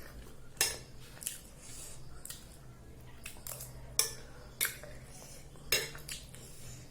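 Cutlery clinking and scraping on a plate of food: about eight sharp, irregular clinks, the loudest about half a second in, about four seconds in and near the end.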